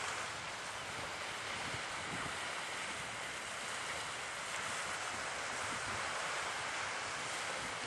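Steady seaside ambience: wind and small waves washing at the shore, an even hiss that doesn't change.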